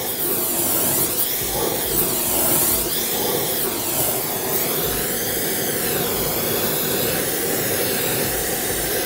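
Hand-held gas torch flame burning with a steady rushing hiss, its tone slowly sweeping up and down, as it heats a hollow aluminum tube for bending.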